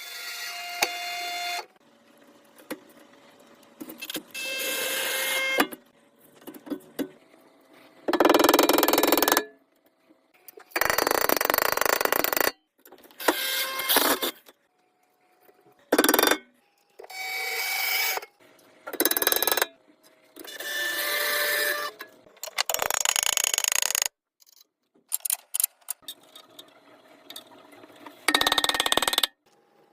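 A string of short, separate tool and workshop sounds, each lasting a second or two and cut off abruptly before the next begins, with short gaps between them.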